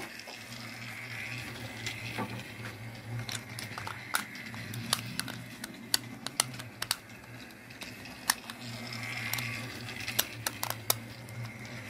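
Battery-powered Trackmaster toy train engine running around plastic track with a steady motor hum and whine, louder as it passes about a second in and again near the end. Scattered small clicks and taps of a screwdriver working the screw on a toy engine's battery cover.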